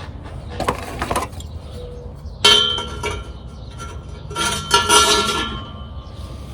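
Stainless steel exhaust clamps handled and fitted onto the pipe: a short scrape about a second in, then two ringing metallic clinks, about 2.5 s and 5 s in.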